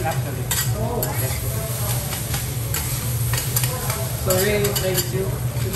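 Japanese fried rice sizzling on a teppanyaki steel griddle as it is stirred and chopped with two metal spatulas, the spatulas clicking and scraping against the plate at irregular intervals.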